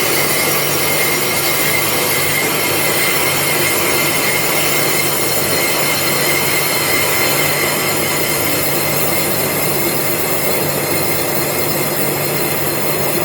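Lathe parting tool cutting through a spinning cylinder repair sleeve: a steady loud cutting squeal with a high ringing tone that fades about halfway through. The sound eases slightly near the end, the change of note that tells the machinist the tool is close to breaking through.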